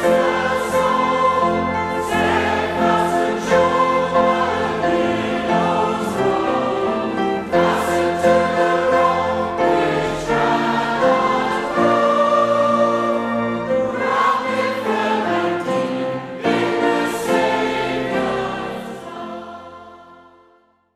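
Choir singing Christian music with a steady low bass underneath, fading out near the end.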